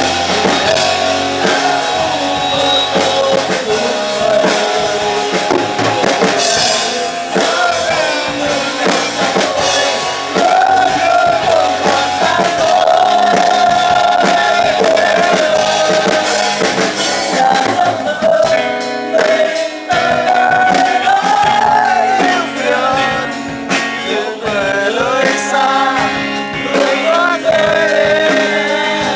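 A rock song: a lead vocal sung over a full band with drums.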